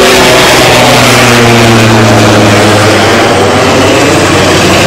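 Super Puma military helicopter flying overhead: loud rotor and turbine noise, its pitch sliding slightly lower as it passes.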